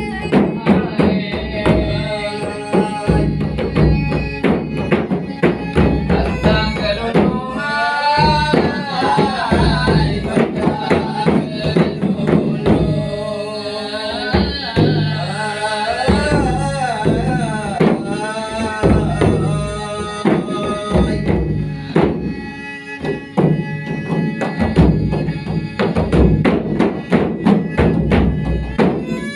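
Traditional Malay dendang music: hand drums keep a steady rhythm under a melodic line that grows busiest in the middle.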